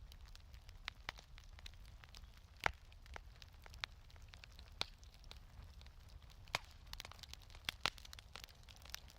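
Wood fire crackling in a fireplace: irregular sharp pops and snaps, the loudest a little under three seconds in, over a steady low rumble.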